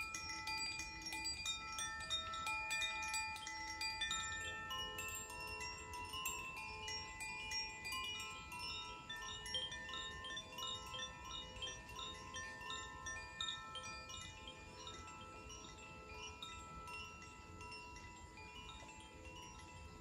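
Koshi chimes, bamboo-tube wind chimes with tuned metal rods inside, swayed by hand: a steady tinkling of many overlapping ringing notes that slowly grows quieter over the second half.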